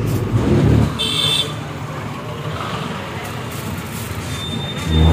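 A bus running on the road, heard from inside: a steady engine rumble and road noise that swells louder in the first second and again near the end, with a brief high beep about a second in.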